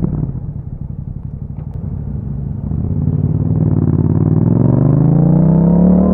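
Yamaha MT-07 parallel-twin engine through an Akrapovic exhaust. It runs off the throttle and lumpy at first, then from about three seconds in the revs climb steadily as the bike accelerates.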